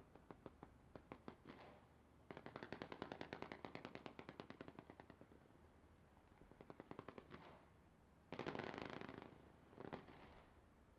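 Fireworks going off in fast strings of sharp pops, several volleys in a row: a sparse run, then a long dense one, another short run, and a dense crackling burst followed by a short one near the end.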